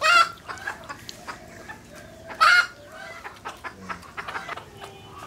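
Chickens clucking, with two loud squawks: one at the start and one about two and a half seconds in.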